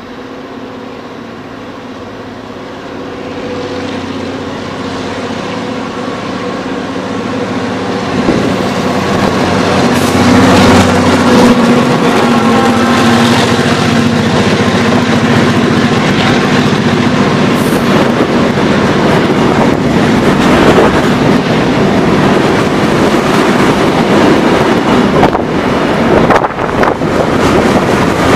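A diesel locomotive drones steadily, growing louder as it approaches and passes close by at about ten seconds in. A long string of empty open-top gondola cars follows with a continuous heavy rumble and rattle of wheels on rail and occasional knocks.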